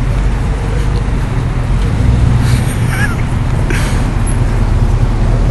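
Short school bus engine idling with a steady low rumble. A few brief higher sounds break in between about two and four seconds in.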